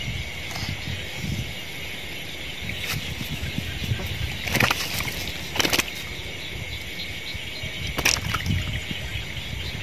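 Water sloshing and splashing in a shallow paddy pool, in a few short bursts about halfway through and again near the end, over a steady high trill of night insects.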